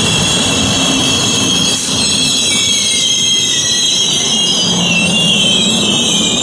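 Amtrak passenger cars rolling past on steel wheels, with a rumble underneath and a high-pitched metallic wheel squeal that wavers in pitch.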